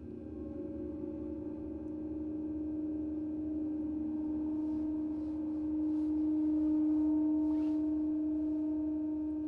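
Gongs ringing on in a long sustained hum: one steady tone slowly swells louder, with fainter higher and lower tones layered around it.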